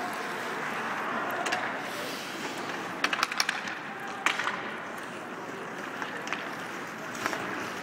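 Ice hockey play in an arena: skates scraping the ice under a steady crowd hubbub, with sharp stick-and-puck clacks, a quick cluster of them about three seconds in and a single strong one a little after four seconds.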